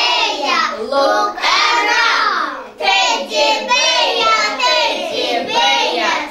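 A group of young children singing together, several voices in unison.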